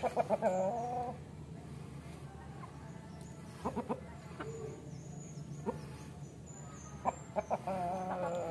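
Bangkok gamecock rooster clucking to a hen in courtship: quick runs of clucks that end in a drawn-out wavering note. A long run comes at the start and another near the end, with shorter ones in between.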